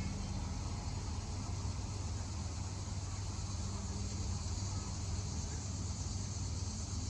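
Steady wind blowing ahead of a thunderstorm, with a low steady hum underneath and no thunder.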